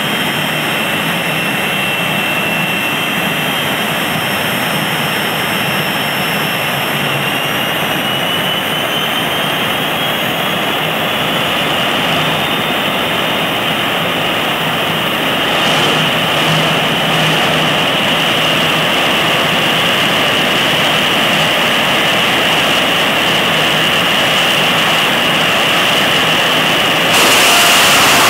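Jet dragster turbine engines running at the starting line with a steady high whine that rises in pitch about eight seconds in and then holds. Near the end the afterburners light and the sound jumps louder with a rushing hiss.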